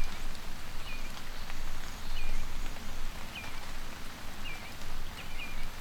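Steady rain falling, with a bird giving short chirps over and over, about one every second or a little faster.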